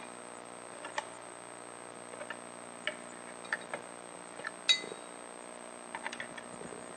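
Scattered light clicks and clinks of a screwdriver and loose metal parts against an X-ray tube housing as the tube is levered loose, with one louder clink about two-thirds of the way in that rings briefly.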